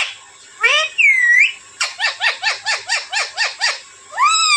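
Alexandrine parakeet calling: a harsh swooping call, then a rapid run of about ten short, clipped notes at roughly five a second, then another arched call near the end.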